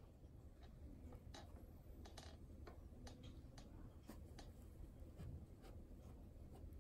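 Faint, scattered small clicks and light scratches of a cat's claws and teeth on a soft rubbery balloon-like ball as it gently paws and mouths it, over quiet room tone.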